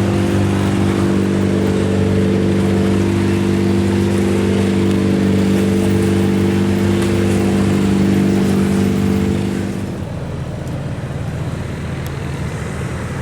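Longtail boat engine running at a steady pitch over a rushing noise; about ten seconds in, the engine note drops away and a quieter rushing noise remains.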